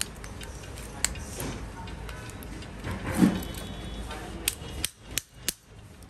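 Small metal clicks and taps of a Honda City lock cylinder being worked out of its housing with the old key, with a dull knock a little past halfway and a quick run of sharp clicks near the end.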